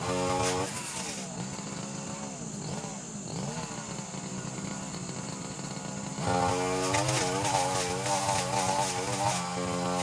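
Brushcutter engine revving high, easing off to a lower, wavering idle for about five seconds, then revving back up about six seconds in.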